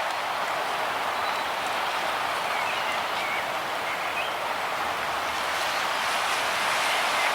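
Steady wash of small waves on a calm shore, with a few faint bird calls about two to three seconds in.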